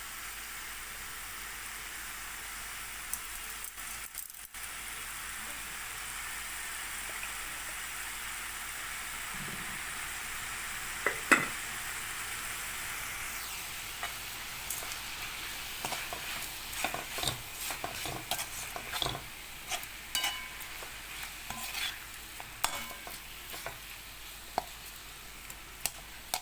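Chicken pieces sizzling in a pan with onion-tomato masala, with a steady frying hiss. A spoon stirs and scrapes against the pan, its clicks coming often in the second half.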